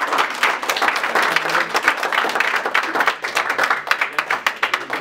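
A small audience clapping, dense and continuous.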